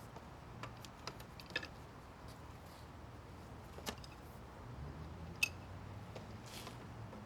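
Sparse clicks and light metal taps from hand tools working on an outdoor faucet being removed, over a faint low hum that grows a little louder about five seconds in.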